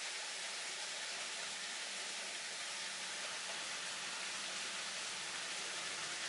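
Steady rain falling, an even hiss with no distinct drops standing out.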